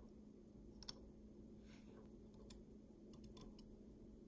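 A few faint, sharp clicks of a small steel screwdriver against a gold-filled pocket watch case and the bench, the sharpest about two and a half seconds in, over a low steady hum.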